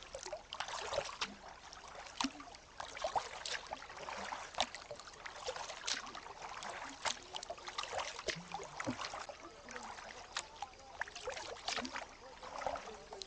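A double-bladed paddle dipping into the lake from a canoe: small irregular splashes as the blades catch the water, and drips trickling off the raised blade.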